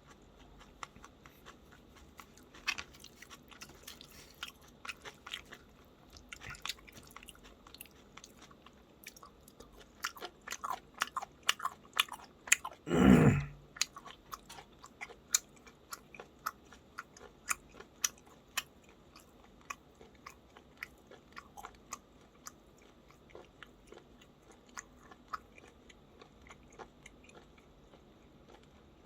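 A person chewing food close to the microphone, with many small sharp mouth clicks that come thickest around the middle. About halfway through there is one louder noise lasting about half a second.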